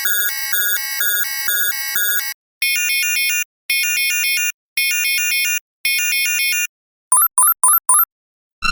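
A run of synthetic science-fiction alarm sounds. First comes a two-tone electronic alarm that switches rapidly between pitches, stopping about two seconds in. Next come four warbling electronic alarm pulses, each about a second long, then four quick rising bleeps, and right at the end a new alarm with falling sweeps starts.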